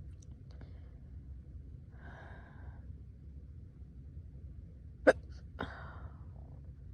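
A person hiccuping: one sharp, loud hiccup about five seconds in, followed about half a second later by a softer breathy catch. A soft breath comes about two seconds in.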